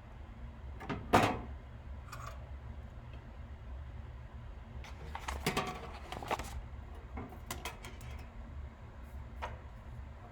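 Scattered clicks and knocks of tools and parts being handled at a soldering bench, the loudest a sharp knock about a second in and a cluster of them near the middle, over a steady low hum.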